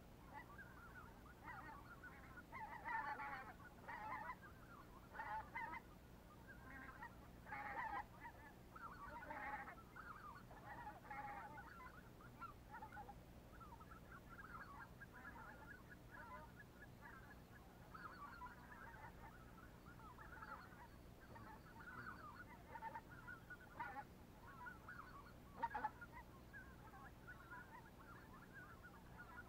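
A flock of geese honking and calling continuously at a distance, many faint overlapping calls at once, a little busier in the first dozen seconds.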